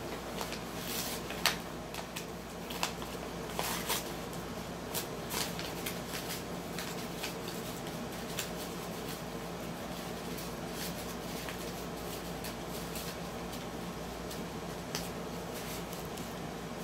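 Corgi puppy chewing and tearing at a brown paper bag: irregular crinkling and ripping of paper, busiest in the first six seconds and sparser after, over a steady low hum.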